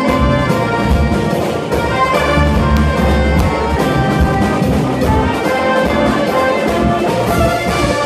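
Live frevo played by a brass band: saxophones, trumpets and trombones playing the melody together over a fast, steady drumbeat from a large bass drum and percussion.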